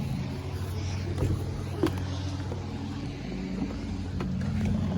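Steady low mechanical hum, like a motor or engine running, with a few faint clicks.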